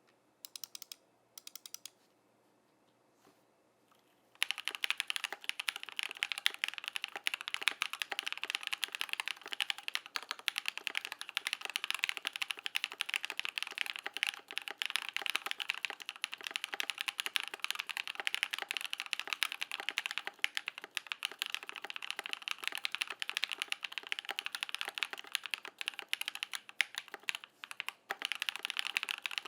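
Fast typing on a KBD67 Lite mechanical keyboard with lubed Durock POM linear switches, a polycarbonate plate and PBT keycaps: a dense, rapid run of keystrokes. A few single key presses and a pause of about two seconds come first, then continuous typing starts about four seconds in, with a brief break near the end.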